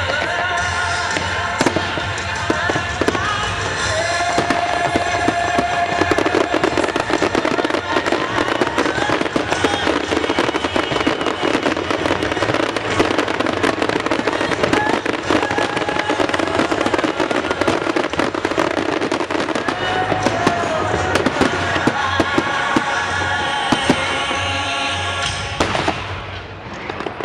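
Fireworks crackling and banging continuously over the music of a pyromusical show.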